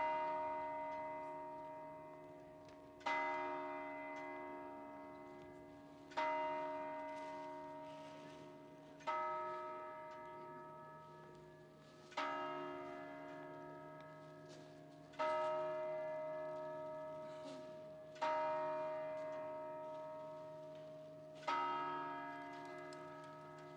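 The bell atop St Mark's Clock Tower struck by the hammers of its two bronze 'Moor' figures, eight strokes about three seconds apart, each ringing on and fading before the next: the clock striking eight o'clock.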